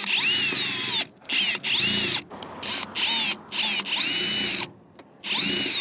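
Power drill turning a screwdriver bit in a sealant-covered Phillips screw on a roof vent flange, trying to back the screw out. It runs in about six short bursts, its whine rising and falling in pitch as the trigger is squeezed and let go.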